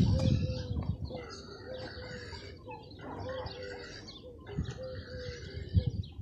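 Birds calling and chirping over and over in short, evenly spaced notes, with a few dull low knocks near the start and again shortly before the end.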